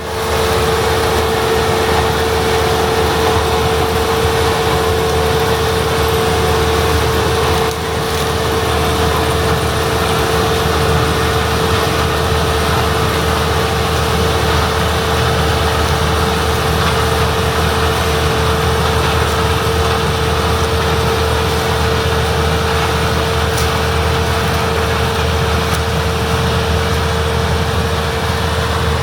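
International Harvester 1660 combine with its DT466B diesel engine, running steadily with a constant high whine over a low engine drone.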